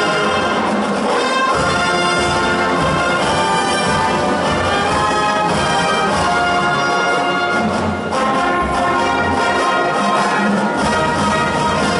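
Marching band playing, brass to the fore, a steady run of sustained chords, heard from the stadium stands.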